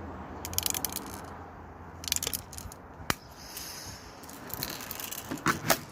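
Airsoft magazines being handled and slipped into a carrier pouch: short bursts of plastic rattling and clicking, with one sharp click about three seconds in.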